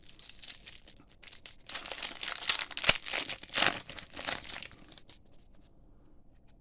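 Crinkling of a foil trading-card booster pack wrapper being handled and torn, busiest from about two to five seconds in.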